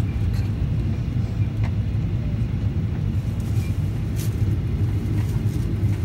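Steady low rumble of a Boeing 737-800's cabin, heard inside from a passenger seat, with the engines and air conditioning running. A few faint clicks sound over it.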